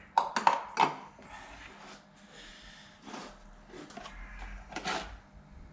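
Handling of parts and packaging on a workbench. A quick cluster of clatters and rustles comes in the first second, then quieter handling noise with a couple of knocks later on, as a new oil filter kit is got out.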